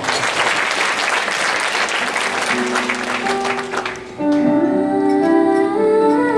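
Audience applauding, then about four seconds in the instrumental introduction of a song begins with sustained chords.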